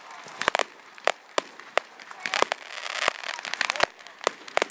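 Fireworks display: an irregular series of about ten sharp bangs over a constant crackling.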